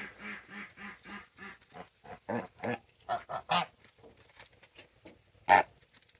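Geese honking: a run of soft, quick low calls, then several louder honks in the middle, with the loudest single honk near the end.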